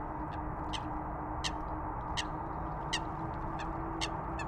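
Distant jet airliner engines running with a steady rumble and a held hum whose pitch creeps slightly upward. Sharp high ticks repeat over it, one every second or less.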